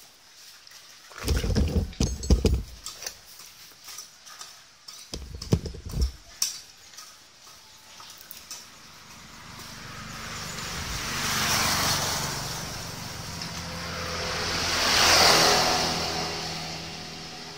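A few clattering knocks, then two passing vehicles, each swelling up and fading away over a few seconds, with a low engine hum beneath.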